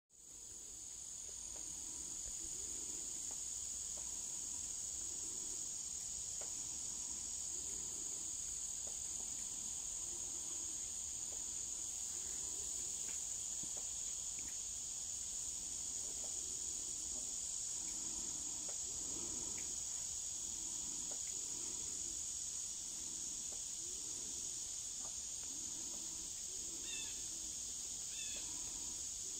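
Steady high-pitched chorus of insects, with a few short chirps near the end.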